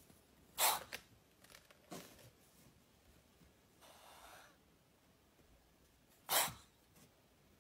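Cobra hissing in short forceful huffs: two loud, sharp bursts of breath about six seconds apart, a weaker one around two seconds in, and a softer, longer hiss around four seconds in.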